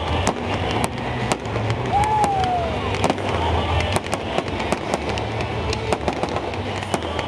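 Fireworks display with aerial shells bursting overhead: rapid, irregular bangs and crackles, several a second, over a steady low rumble. A short rising-and-falling whistle comes about two seconds in.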